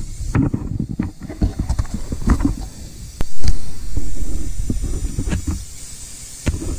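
Steady hiss from an air hose leaking air, under irregular knocks and low rumbling handling noise as the camera is moved over the workbench, loudest for a second or so about three seconds in.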